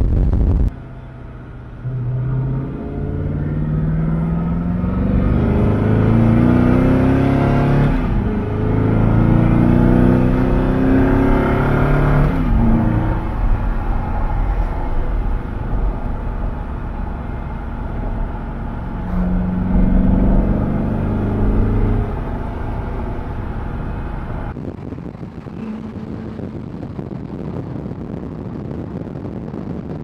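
Koenigsegg Agera's twin-turbo V8 at full throttle, its pitch climbing hard through the gears, with upshifts about eight and twelve seconds in and another pull around twenty seconds in. In the last few seconds it drops away to quieter wind and road noise.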